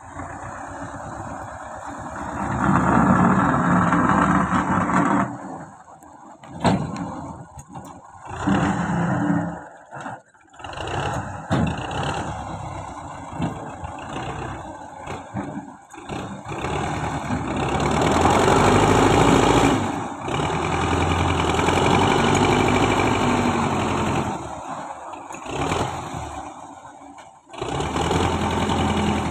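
Diesel tractor engine running and revving up and down repeatedly while it works a front-end loader, with loud surges of several seconds separated by quieter lulls.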